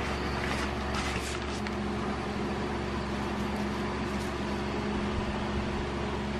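Steady mechanical hum with a few fixed low tones, like a running fan or motor, with a few faint brief scratchy sounds about a second in.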